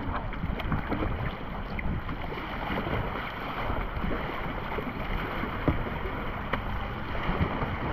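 Water splashing and lapping around a kayak, a steady rush with scattered small splashes and drips, with wind buffeting the microphone.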